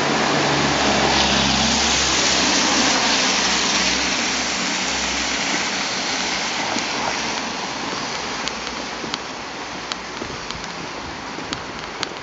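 Street traffic noise: a vehicle passing with a low engine hum and a hiss that swells and then fades over several seconds, followed by a few light clicks.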